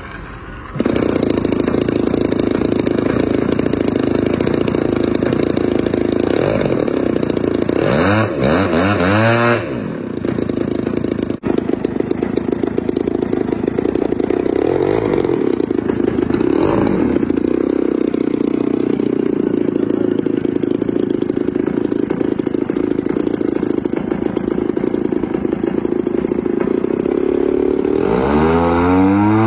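Small propeller engine of a radio-controlled model airplane catching about a second in and running steadily, revved up and down briefly several times, then throttled up with a rising pitch near the end for the take-off run.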